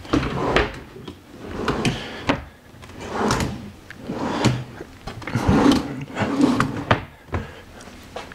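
Drawers of a hotel chest of drawers being slid open and pushed shut one after another, each slide ending in a knock.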